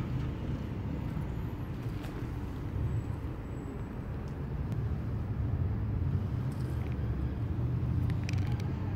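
Steady low rumble of outdoor background noise, like distant road traffic, with a few faint clicks near the end.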